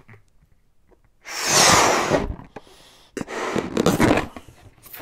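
Two long, loud breaths of a man blowing up a latex balloon by mouth, each lasting about a second, the first coming about a second in.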